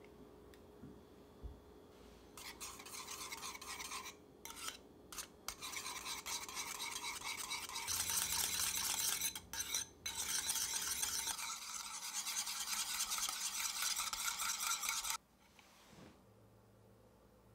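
Wire whisk beating heavy cream and blueberry sauce together in a small bowl: rapid scratchy whisking against the bowl, with a few short pauses. It gets louder about eight seconds in and stops suddenly near the end.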